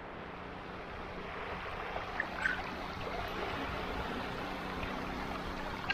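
Small waves breaking and washing up a sandy shore in a steady rush of surf.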